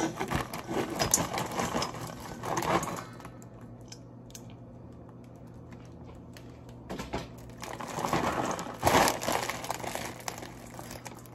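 Plastic salad-kit bag crinkling and rustling as it is handled and opened, in bursts during the first few seconds and again, loudest, from about seven to ten seconds in, with a quieter stretch between.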